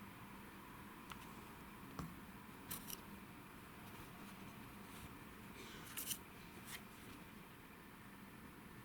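Faint steady room hiss with a handful of short, sharp clicks and scratchy rustles, a few seconds apart.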